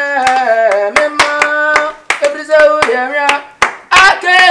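A voice singing a stepped melody in short phrases over a quick run of sharp claps.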